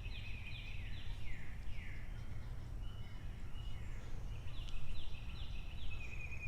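A songbird singing: a run of quick downslurred whistled notes, then after a short pause a second similar run near the end, over a steady low rumble.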